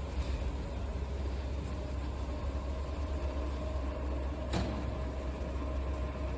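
Hot laminating machine running with a steady low hum and a faint steady whine, while clear plastic laminating film is pulled by hand over its steel rollers; one short crackle of the film about four and a half seconds in.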